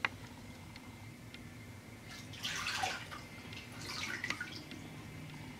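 Water sloshing in a plastic tub and pouring off an SKB hard gun case as it is lifted out, in two splashy bursts about halfway through and again shortly after, with dripping.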